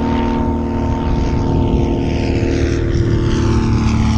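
Cessna 172's piston engine and propeller running steadily as the plane passes overhead. The drone is overlaid by a hiss that sweeps slowly up and down in pitch.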